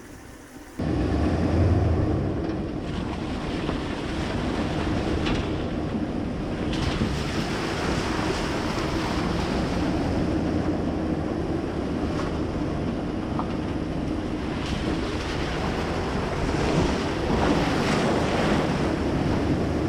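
Wind buffeting the microphone: a loud, steady rushing with a low rumble underneath, which starts suddenly about a second in and cuts off suddenly at the end.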